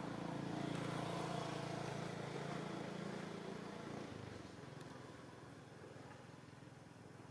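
A motor vehicle's engine running steadily, then fading away about four seconds in.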